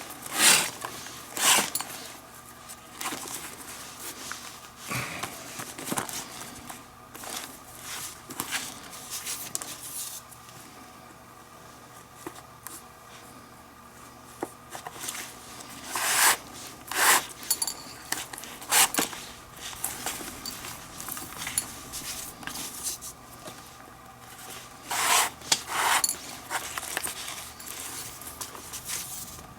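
Leather lace being worked and pulled through a baseball glove's lace holes during a full relace, with scattered sharp clicks and scrapes of leather and tools, loudest in short clusters.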